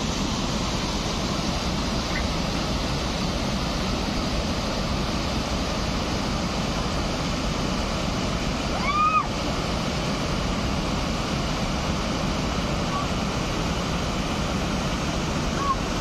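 Steady rush of river water pouring over a concrete weir and splashing down small cascades into a pool. About nine seconds in there is one short high call that rises and falls.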